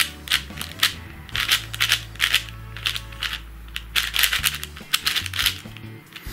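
A YJ RuiSu 4x4x4, a budget non-magnetic plastic puzzle cube, turned quickly by hand: a rapid run of clicks and clacks as its layers snap round, several a second.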